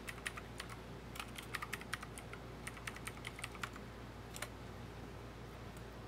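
Typing on a computer keyboard: an irregular run of quiet key clicks that stops about four and a half seconds in.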